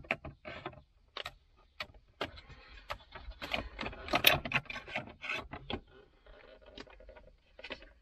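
Plastic centre-console trim of a Volvo V70 being worked loose by hand, pulled up off its front clip: irregular clicks, knocks and rubbing, busiest about halfway through.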